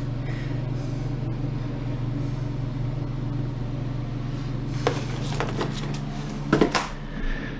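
A steady low hum, with a few short clicks and handling knocks about five and six and a half seconds in, as light-fixture wiring is being connected.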